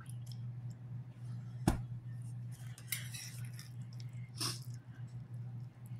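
A knife cutting into a baked casserole and scraping against the stoneware baking dish, with one sharp clack a little under two seconds in and softer scrapes after it, over a steady low hum.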